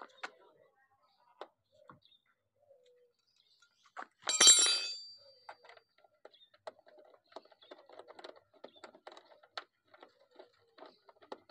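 A bright metallic clatter with a brief ring, lasting about a second, around four seconds in, followed by faint scattered clicks and taps of hand work on the car's rear trim.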